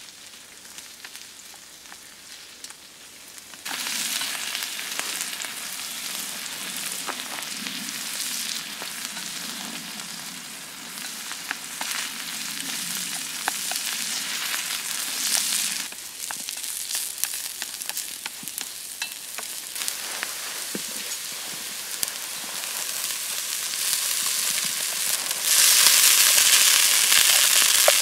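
Rice and vegetables sizzling as they stir-fry over a campfire, with small pops and spits. The sizzle grows suddenly louder about four seconds in, eases a little past the middle, and is loudest in the last few seconds.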